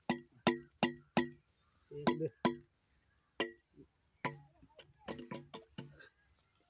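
Metal tool repeatedly striking the metal borewell pipe: about a dozen sharp clanks, each with a brief ring, quick and even at first, then irregular with short pauses.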